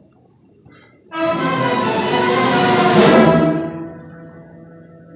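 Youth orchestra playing: after about a second of quiet, a loud full-orchestra chord comes in suddenly and is held for about two seconds, then it drops back to softer held notes.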